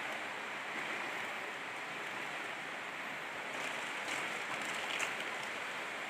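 Steady rushing of river water. A few faint clicks are heard about three and a half to five seconds in, the sharpest near five seconds.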